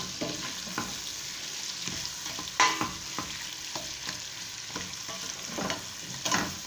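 Sliced onions frying in hot oil in a stainless steel stockpot, with a steady sizzle, while a utensil stirs them and scrapes and knocks against the pot. The loudest knocks come about two and a half seconds in and again near the end.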